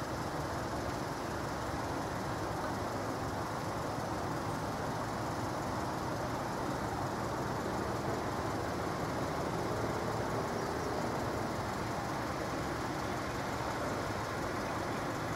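Steady, even rumble of vehicles idling at a closed level crossing, with no distinct alarm tone or barrier movement.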